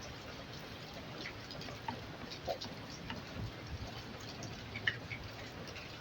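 Faint scattered clicks and light taps, with a couple of sharper ticks in the middle and near the end, from hands handling the plastic and metal parts of an LED TV being taken apart.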